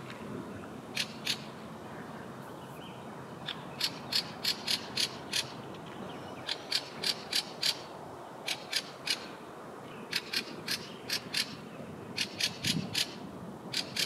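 A thrush calling with harsh, dry chattering notes: runs of several sharp clicks at about four or five a second, repeated every second or two.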